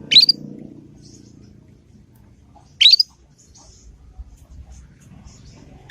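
Young canary practising its calls: three short, loud chirps, each sweeping upward in pitch, about three seconds apart, with faint high twittering in between.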